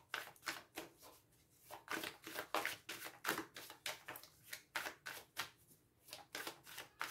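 A deck of oracle cards being shuffled by hand, a quick irregular run of soft flicks and slaps of card on card, with a couple of short pauses.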